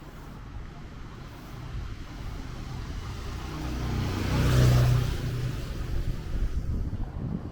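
A motor vehicle passing close by on the street, its engine and tyre noise growing louder to a peak about four and a half seconds in, then fading away.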